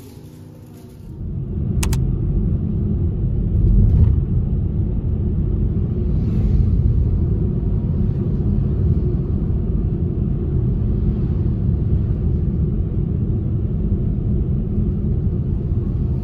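Steady low rumble of a car on the road, heard from inside the cabin, starting about a second in.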